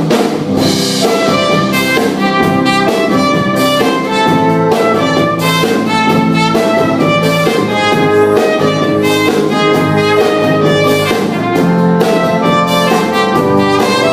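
A band playing the instrumental introduction to a song: a melody line over drums and bass with a steady beat.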